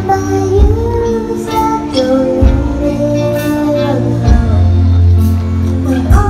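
A young girl singing long held notes into a microphone, with a live band: nylon-string acoustic guitar and bass guitar underneath, the bass changing notes every couple of seconds.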